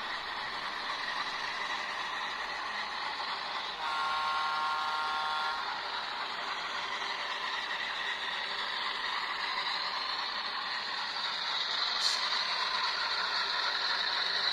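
Alco RS-3 diesel locomotive's 12-cylinder engine running steadily with a whine. About four seconds in, a chord-like horn sounds for nearly two seconds.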